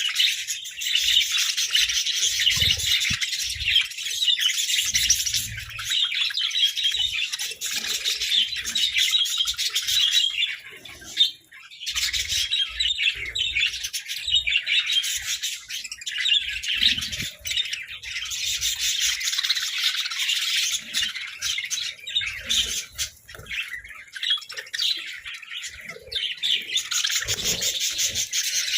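Several budgerigars chattering and chirping in a dense, continuous warble, briefly dropping off about a third of the way in before picking up again.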